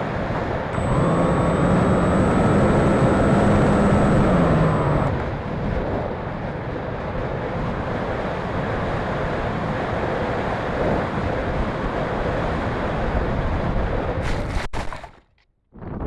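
Wind rushing over an E-flite Conscendo RC glider's onboard camera in flight, with the glider's electric motor and propeller whining for about four seconds near the start, then dropping away as it is throttled back. Near the end there is a sharp click and the sound cuts out briefly.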